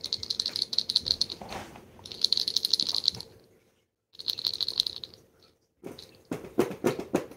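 Plush rattle ball toy shaken by hand in three quick bursts, its rattle inside giving a fast, bright shaking, with short pauses between bursts.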